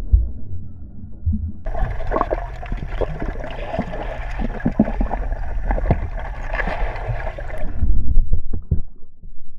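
Muffled underwater gurgling and splashing in a swimming pool as a dog dives. A dense hiss of bubbles with many sharp clicks sets in about two seconds in and stops abruptly about eight seconds in, over a low rumble.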